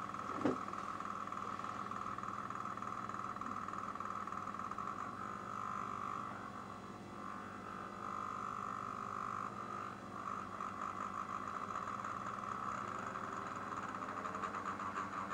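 Two small loudspeakers, each with a mirror mounted on its cone, humming steadily as an amplified function generator drives them with low sine waves: one at 100 Hz, the other being tuned upward from about 47 Hz, so part of the hum rises in pitch near the end. There is a brief click about half a second in.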